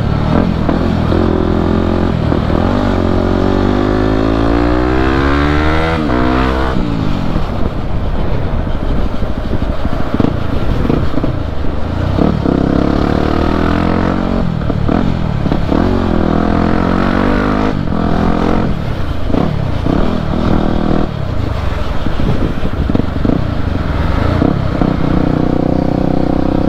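Yamaha WR250 supermoto's single-cylinder four-stroke engine heard from the rider's seat, accelerating through the gears. The pitch climbs in long rising sweeps and drops back at each shift, several times over.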